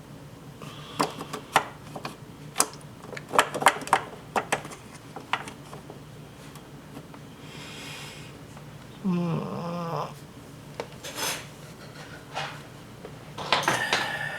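Clicks, knocks and clatter of parts and tools being handled while a washing machine is taken apart, with a brief rubbing noise and, about nine seconds in, a short squeak that bends in pitch.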